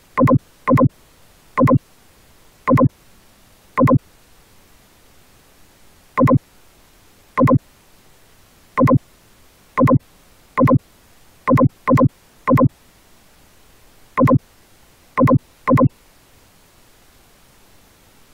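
A series of about sixteen short, identical electronic beeps at uneven intervals, some in quick pairs, over a faint steady hiss.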